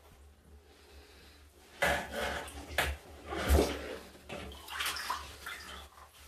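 Water splashing and sloshing in a bathtub while a wet, shampooed cat is scrubbed by hand. The sound comes in several short bursts after a quiet first couple of seconds, and the loudest is about three and a half seconds in.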